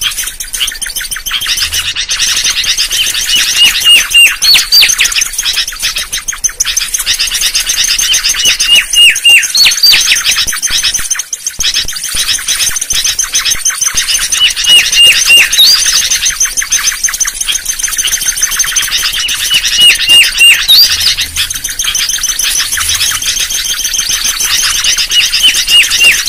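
Mangrove whistler song: phrases of a few clear whistled notes, each ending in a sharp rising upslur, repeated about every five to six seconds over a steady high chatter.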